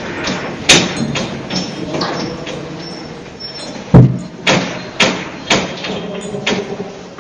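A house shaking in a strong earthquake: continuous rattling with many sharp knocks and bangs. The heaviest is a thud about four seconds in, and the clatter dies down near the end.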